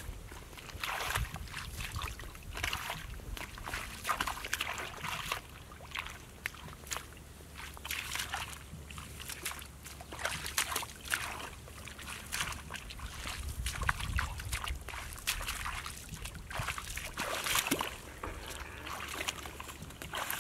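Hands sloshing and splashing in shallow muddy water in irregular bursts, from a man groping through the mud of a flooded pond for catfish.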